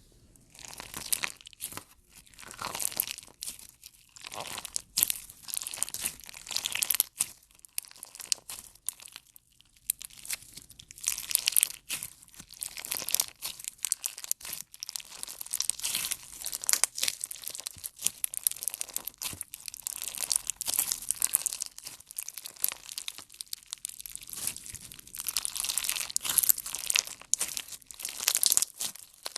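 Slime being pressed, squeezed and stretched by hand, giving dense crackling and popping made of many sharp little snaps and short bursts.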